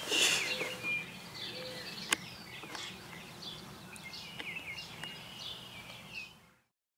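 Birds chirping: scattered short, high chirps and whistles, with one sharp click about two seconds in. The sound fades out to silence near the end.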